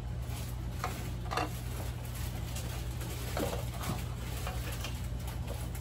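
Light clinks and clatters of plastic toy kitchen pieces being handled and set down, a few separate knocks over a steady low hum.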